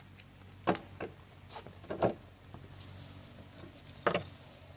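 A handful of sharp knocks and clacks from fishing gear being handled on a wooden dock. The loudest come about a second in, at two seconds and near the end, over a faint steady low hum.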